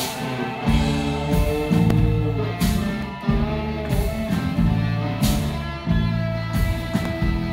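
Rock band playing live, an instrumental passage of electric guitar over bass and drums, with regular cymbal crashes; the full band comes in under a second in.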